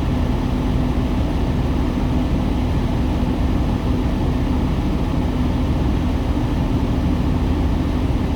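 Semi-truck's diesel engine idling: a steady low rumble with a constant hum.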